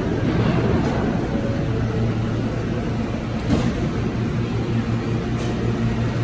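R160 subway train standing at the platform, its equipment giving a steady low hum. Its doors close with a short thump about three and a half seconds in.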